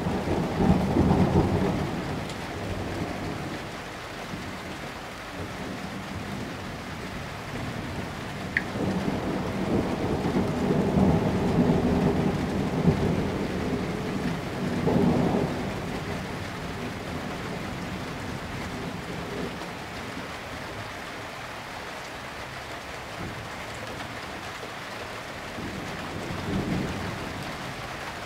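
Steady rain with low rolls of thunder. The loudest rumbles come about a second in and from about ten to thirteen seconds in, with a shorter one at fifteen seconds and a fainter one near the end.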